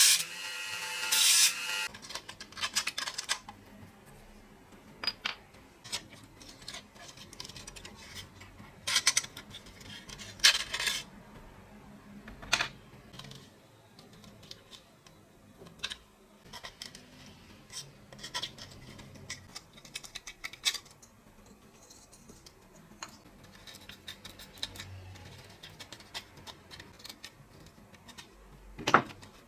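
Small metal parts of a rusty truck being handled and worked by hand: scattered sharp clicks, taps and short scrapes with quiet gaps between them.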